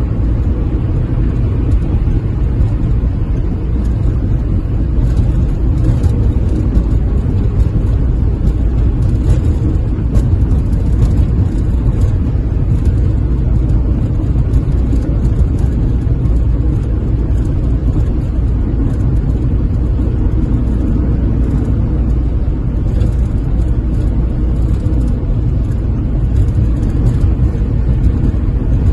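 Steady low rumble of road and engine noise inside a vehicle's cab while it drives along a motorway.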